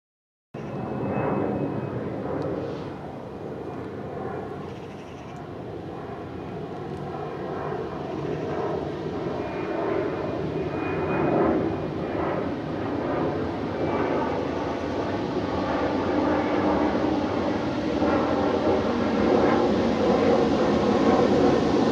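Distant drone of two Class 66 diesel locomotives and their EMD two-stroke V12 engines approaching, growing steadily louder.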